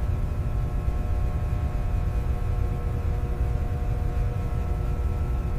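A motor vehicle or aircraft engine running steadily: a loud, deep rumble with a few faint steady whining tones above it.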